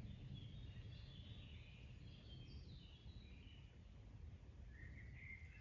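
Faint, distant birdsong: short chirping phrases for the first few seconds and another near the end, over a low steady rumble of background noise.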